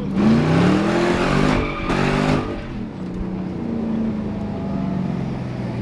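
Car engine heard from inside the cabin, accelerating hard with its pitch climbing. The pitch drops at a gear change about a second and a half in and climbs again, then the engine eases back to a steady cruise.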